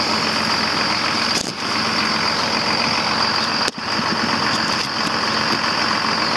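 Farm tractor engine idling steadily, with a steady high hiss over it.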